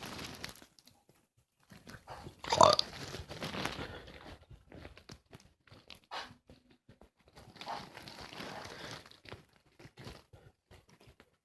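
A person burping loudly once, about two and a half seconds in, followed by fainter scattered noises.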